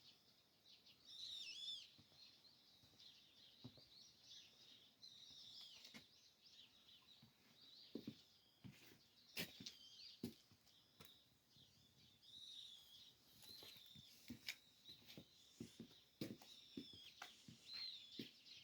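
Faint chirping of small birds, with scattered soft clicks and taps.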